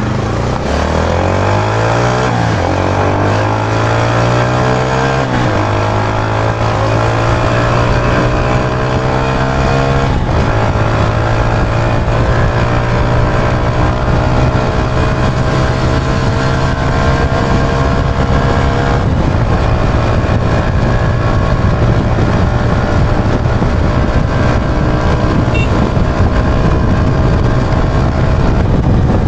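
Yamaha YB125Z DX's 125 cc single-cylinder four-stroke engine under hard acceleration on the move. The revs climb and drop twice in the first few seconds as it shifts up through the gears. After that the pitch rises slowly and steadily as the bike pulls toward top speed in its highest gear.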